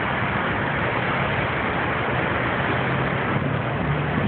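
Steady rushing noise of road traffic and wind on the microphone. A low engine hum comes in during the second half.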